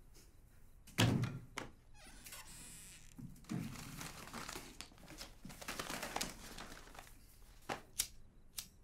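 A heavy thunk about a second in, then rustling and scraping as banknotes are pulled from a wooden shelf and handled. A few sharp clicks near the end.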